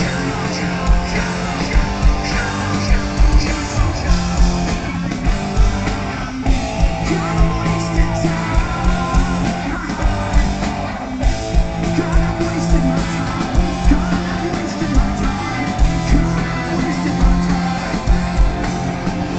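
Rock music: a band playing with a steady drum beat, guitar and singing.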